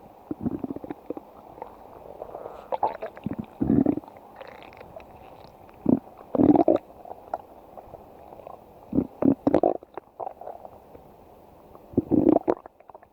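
A person's stomach growling: irregular gurgling rumbles, some short and a few lasting about half a second, over a faint steady hiss.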